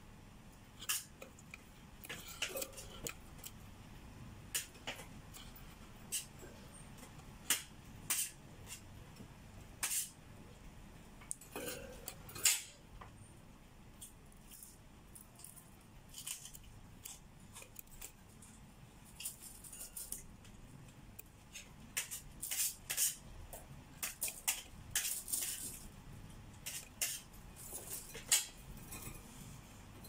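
Scattered light metallic clicks and clinks of budgerigars' claws and beaks on the wire bars of their cage as they climb and hang from them, coming thicker for a few seconds near the end.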